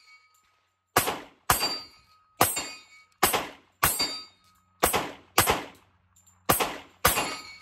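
Sig Sauer P320 XTEN Comp 10mm pistol fired nine times in a steady string, the shots about half a second to a second apart, each a sharp crack with a short ring-out.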